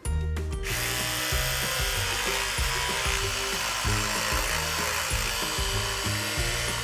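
Background music with low bass notes. From just under a second in, a steady hissing noise plays over it.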